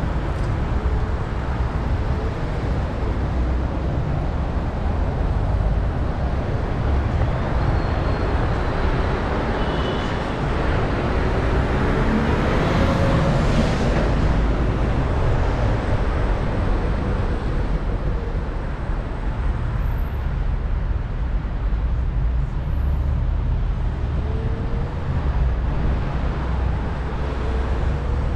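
Steady wind rumble and road noise from riding an electric scooter through city traffic. About halfway through it swells briefly as traffic passes.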